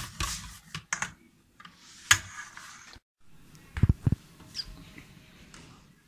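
Kitchen clatter of a ladle, frying pan and spatula during crepe making: scattered sharp clicks and knocks, the loudest about two seconds in and a pair of heavier knocks about four seconds in.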